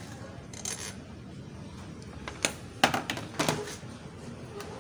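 Sharp clicks and light metallic clinks from a screwdriver and air-intake parts being handled under a car's hood, bunched together between about two and a half and three and a half seconds in.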